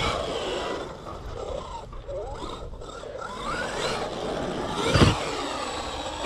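Traxxas XRT RC truck running on a 12S 800 kV brushless motor, its motor and drivetrain whine rising and falling with the throttle, with one thump about five seconds in.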